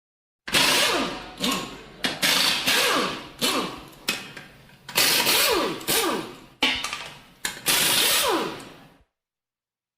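Pneumatic air wrench fired in a series of short bursts, about eight of them, each starting sharply and winding down with a falling pitch as the air motor spins down.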